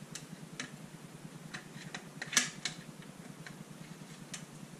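Scattered small plastic clicks and taps as the old on-off switch is worked out of a Stihl chainsaw's plastic handle housing, with one louder click about halfway through. A steady low hum runs underneath.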